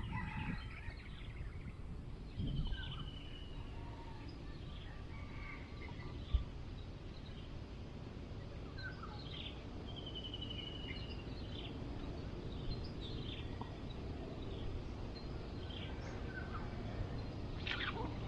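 Outdoor rural ambience: a steady low background rumble with scattered bird chirps and a couple of short trills, and a single brief knock about six seconds in.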